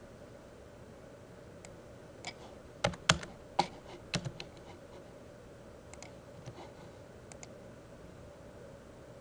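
Computer keyboard typing in scattered, irregular keystrokes, loudest in a cluster about three to four seconds in, with lighter taps later, over a faint steady hum.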